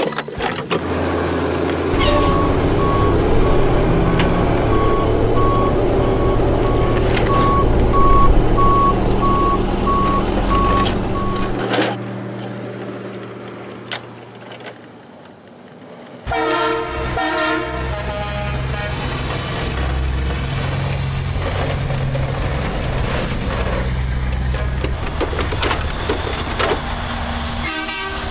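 Truck engine running with a reversing alarm beeping steadily for about ten seconds. After a quieter stretch, a horn sounds for about two seconds and the engine runs on.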